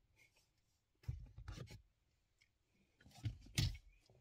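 Rustling and knocking handling noises in two short clusters, about a second in and again about three seconds in, from someone moving around in a car seat.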